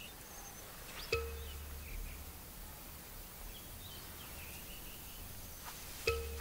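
Quiet outdoor ambience with scattered short bird chirps. Two soft pitched notes of the documentary's background music sound about a second in and again near the end, each followed by a low hum.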